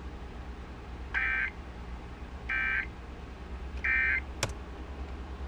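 Emergency Alert System end-of-message signal: three short bursts of SAME digital data, each a fraction of a second of buzzy warbling tone, about 1.4 seconds apart. Under it runs a low hum from the radio, and a sharp click follows the third burst.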